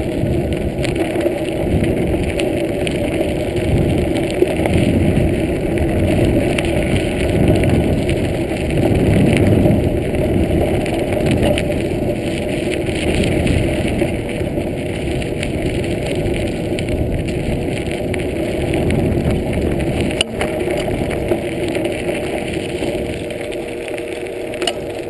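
Steady rumbling noise of a bicycle rolling fast over a rough dirt trail, the frame's rattle carried through a handlebar-mounted camera.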